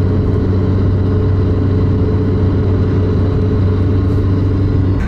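Car driving steadily along a highway: an even, low engine and road drone that holds one pitch.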